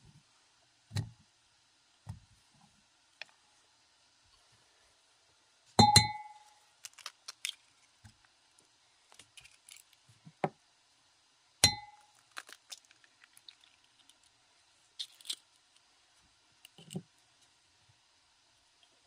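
Glass food-chopper bowl being handled as ingredients go in: two sharp knocks on the glass about six seconds apart, each ringing briefly, which fit eggs being cracked on the bowl's rim, among quieter taps, clinks and soft thumps.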